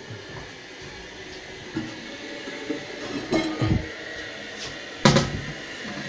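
Porcelain lid of a Glacier Bay toilet tank being lifted off and handled: clinks and scrapes about three seconds in, then one sharp knock about five seconds in.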